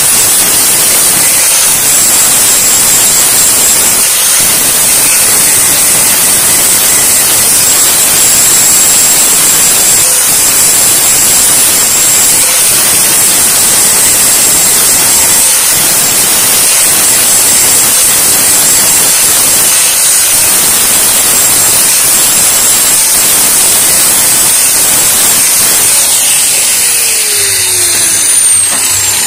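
Angle grinder with an abrasive disc grinding weld beads flush on steel tubing: a loud, steady high-pitched whine with grinding hiss, winding down near the end.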